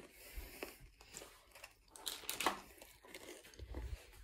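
Quiet, irregular crunching and crackling of someone chewing a pretzel-and-Rolo treat with the mouth closed, with a few low bumps near the end.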